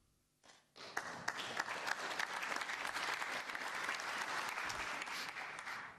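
Arena audience clapping, starting suddenly about a second in, holding steady for about five seconds, then dying away near the end.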